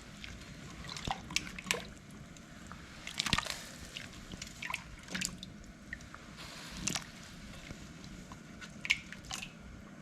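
Liquid dripping and small splashes: a dozen or so short, irregular drips and clicks.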